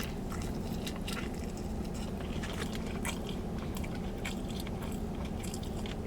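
A person chewing and biting crunchy fried food close to the microphone, with small irregular crunches and mouth clicks.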